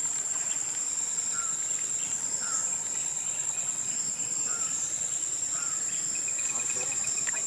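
A steady, high-pitched insect drone of crickets or cicadas, with a few short chirps about a second apart and a brief rapid ticking trill near the end.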